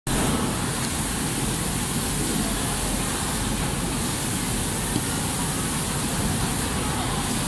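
Steady factory-floor noise: an even hiss and rumble of machinery and ventilation running, with no distinct knocks or tones.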